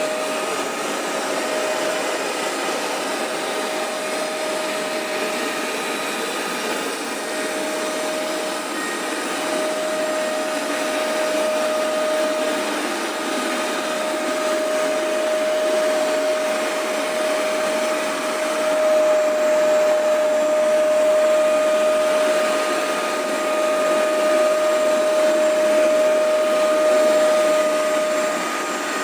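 Hoover MaxExtract 77 upright carpet cleaner running steadily, its suction motor giving a constant whine over a rushing noise, a little louder in the second half.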